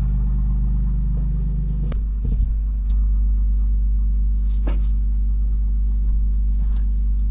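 Car running with a steady low rumble, with a sharp click about two seconds in, a brief rattle just after it, and another click near five seconds.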